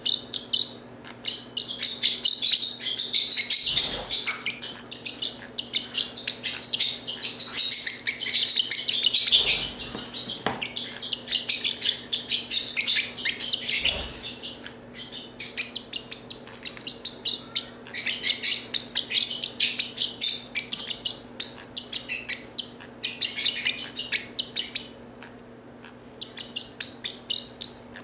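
Parrotlet chattering in long runs of rapid, high-pitched chirps broken by short pauses, with a few dull knocks.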